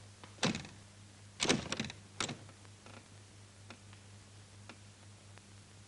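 A locked wooden door being tried: its handle and latch rattle and the door knocks in its frame in short clatters, once about half a second in and in a quick cluster around one and a half to two seconds in. A steady low hum runs underneath.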